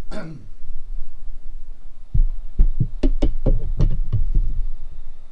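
Hard parts being handled: a click at the start, then a quick run of about eight knocks and low clunks from about two seconds in, stopping after a couple of seconds.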